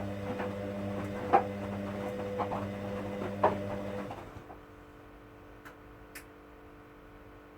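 Hoover washing machine running, its motor humming steadily with light clicks and two sharper knocks. The motor stops about four seconds in, leaving a faint electrical hum and a couple of small clicks.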